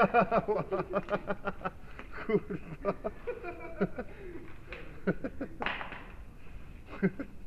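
Indistinct voices of paintball players talking and calling out, mixed with scattered sharp clicks and knocks. A short hiss comes near the end.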